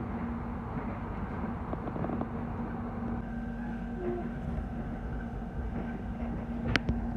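Airport rail link electric train heard from inside the carriage while running: a steady rumbling ride noise with a constant low hum, and one sharp click near the end.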